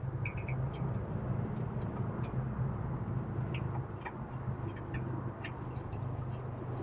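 Scattered small metallic clicks and clinks, irregular and light, of a sway bar link and its bolts and tools being handled while it is fitted to the suspension, over a steady low hum.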